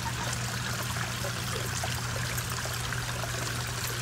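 Steady trickle and splash of water into a koi pond, with many small drips.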